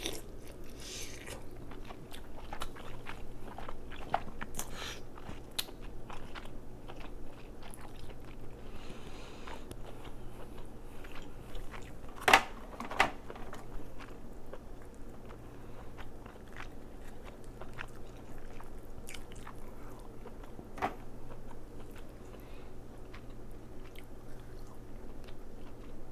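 Close-miked eating of crab: chewing and biting with many scattered small mouth clicks, and two sharp, louder snaps a little past the middle.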